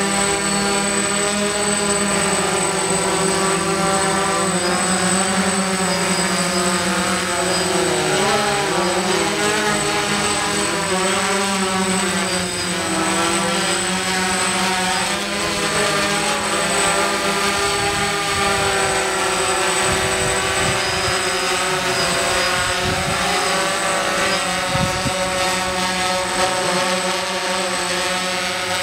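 Hexacopter's six electric motors and propellers buzzing steadily as it hovers and manoeuvres, several pitches weaving up and down together as the motors change speed, with a clear dip and rise about eight seconds in.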